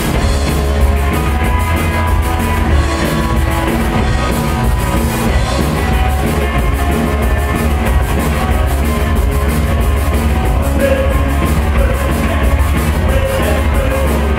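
Live rock band playing loudly, with electric guitars and a drum kit and a heavy low end.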